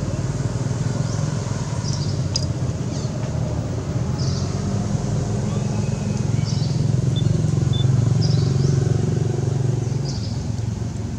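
A motor vehicle's engine running steadily, swelling louder about two-thirds of the way through and then fading as it passes. Short high chirps repeat about every one and a half seconds over it.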